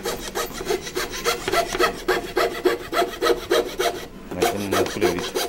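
Hand fret saw with a thin blade cutting a thin wooden board in quick, even up-and-down strokes, about four a second, the blade rasping through the wood.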